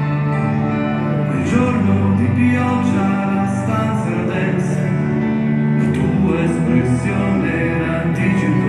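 A song played through a stadium's loudspeakers, with a male voice singing over sustained instrumental chords.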